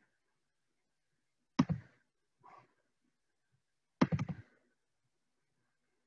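Two short clicking knocks close to the microphone, about two and a half seconds apart, with a fainter tap between them, from handling the computer at the desk.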